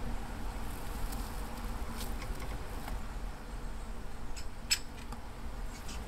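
Great spotted woodpeckers giving a few faint, short, sharp squeaky calls over a low background hum, a pair about two seconds in and a few more near the end.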